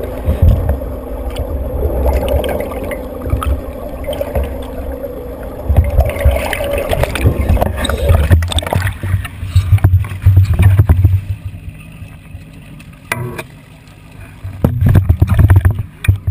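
Water sloshing and churning around a camera held just under the surface, heard muffled and rumbling, with scattered knocks and bumps as the camera moves through the water.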